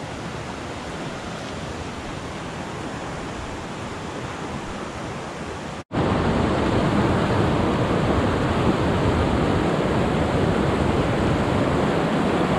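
Mountain creek water rushing over rocks, a steady noise. After a short break about six seconds in, louder whitewater rapids.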